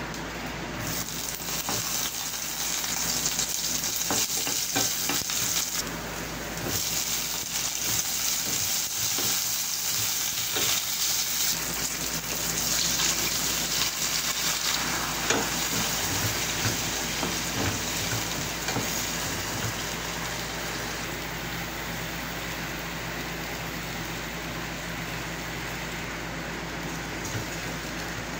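Hot oil sizzling in a frying pan: coated chicken pieces frying while tongs turn them, then chopped bell peppers, onion and garlic sautéing. A few light knocks of the utensils on the pan.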